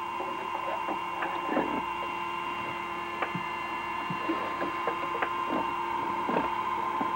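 A steady hum made of several held tones, with scattered light clicks and ticks.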